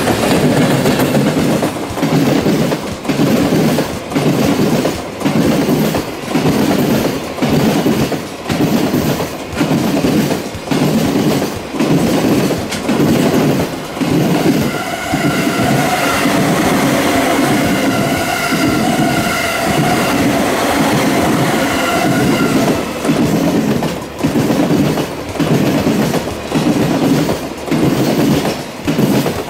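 JR Freight container train passing, its wagons' wheels clattering over rail joints in a steady rhythm of about one beat a second as each container flatcar goes by. Midway, a steady high whine lasts about eight seconds.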